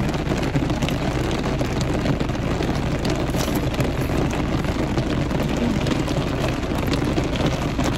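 Very heavy rain falling on the car's roof and windows, heard from inside the cabin as a steady, dense hiss.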